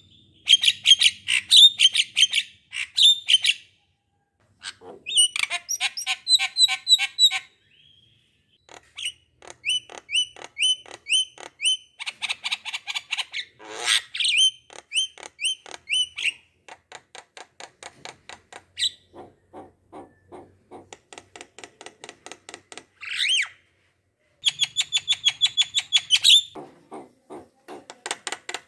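A bird calling in rapid trains of short, high chirps, in bursts of a few seconds separated by pauses.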